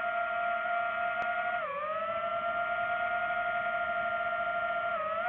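DJI FPV drone's motors and propellers whining steadily in flight. The pitch dips briefly about a second and a half in and again near the end.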